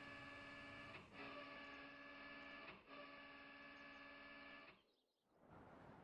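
Faint steady hum made of several tones, dipping briefly about a second in and again near three seconds, then cutting off about five seconds in.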